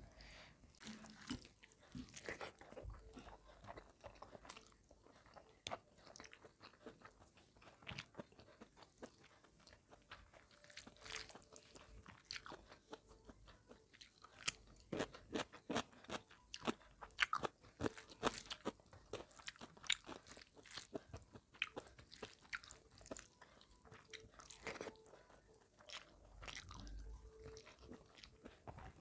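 Close-miked chewing with many sharp crunches from biting raw cucumber slices, the crunches densest and loudest around the middle.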